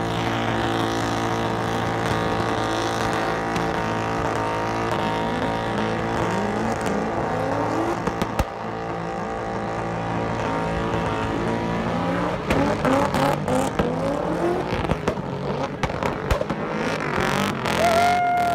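Drift cars' engines revving again and again, rising in pitch, with tyres squealing as the cars slide. Near the end there is one long, high tyre squeal that falls away.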